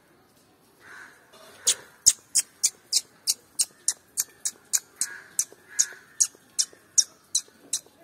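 Indian palm squirrel chirping: a long run of short, sharp, high chirps, about three a second, starting a little under two seconds in.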